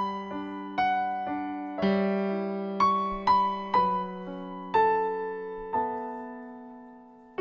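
Piano playing the slow instrumental introduction of a worship song: single notes and chords struck every half second to a second, each fading slowly, with the last chord left to die away.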